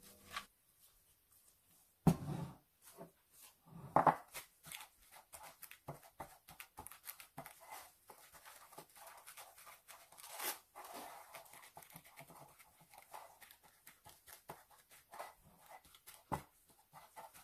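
Crinkling and rustling of plastic cling film and nitrile-gloved hands as minced pork is handled and pressed into a film-lined ramekin, with a few soft knocks of the dishes against the counter.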